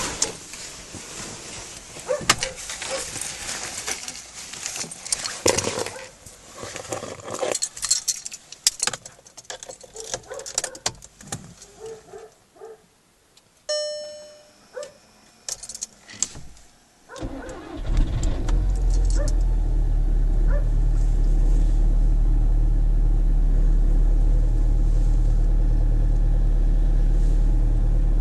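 Keys jangling and clicking for a while, a short beep a little past midway, then a Skoda Octavia 1.6 TDI common-rail four-cylinder diesel starts from cold and settles into a steady idle for the last ten seconds or so.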